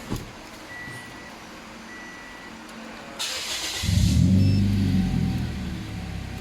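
Toyota Vios NCP93's engine starting: a short crank about three seconds in, then it catches, revs briefly and settles to idle. A thump and a few short high beeps come before it.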